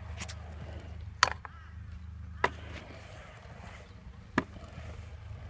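Stunt scooter clacking on skatepark concrete: three sharp hits of the deck and wheels, a second or two apart.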